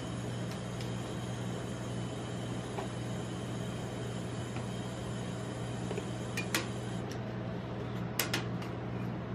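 Steady low hum of a rolled-ice-cream cold plate's refrigeration unit running, with a few sharp clicks of the metal spatula handling the rolls, once about two-thirds in and a quick pair near the end.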